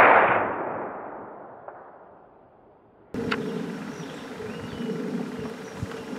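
The long echoing tail of a loud bang, fading away over about three seconds. It then cuts to outdoor ambience with a steady low hum, a click and a few faint chirps.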